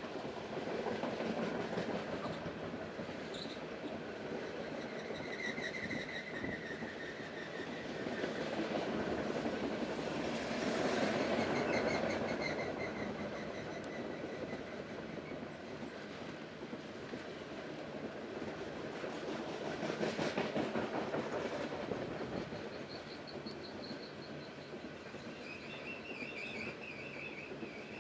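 Long freight train of tarp-covered gondola cars rolling past: a steady rumble and clatter of steel wheels on the rails that swells and eases as cars go by, with faint high wheel squeals now and then, strongest near the end.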